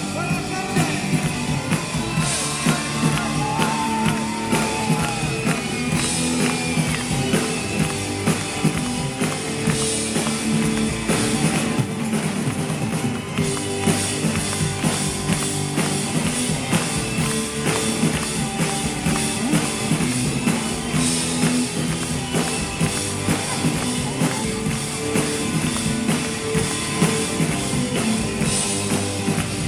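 Rock band playing live, with drum kit, guitar and a singing voice over a steady beat.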